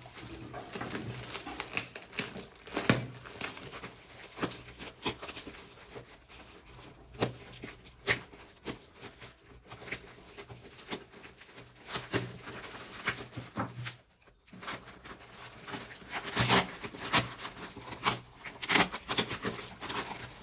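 A delivery package being opened by hand: its wrapping crinkling and tearing in irregular bursts, with scattered clicks and knocks of handling, busiest near the end.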